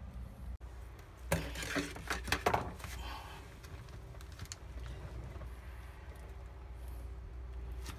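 Gloved hands handling a plastic bag of liquid foam mix: rustling and light clicks for about a second and a half, over a steady low hum.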